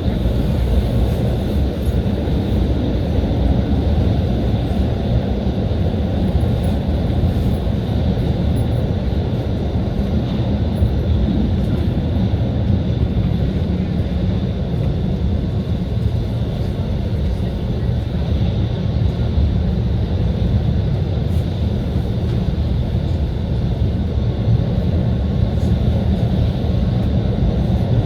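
SEPTA route 34 trolley (Kawasaki light rail car) running steadily, heard from inside the car: a continuous low rumble of wheels and motors with a faint steady high whine above it.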